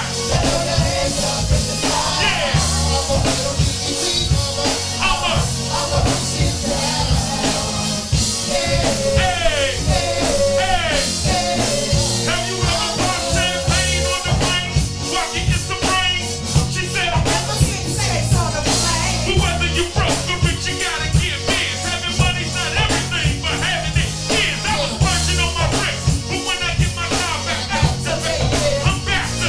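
Background rock music with a steady beat, playing throughout.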